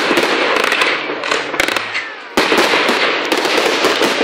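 Fireworks going off in a dense run of sharp crackles. The crackling thins out after about a second, then a fresh loud salvo of crackling bursts in about two and a half seconds in.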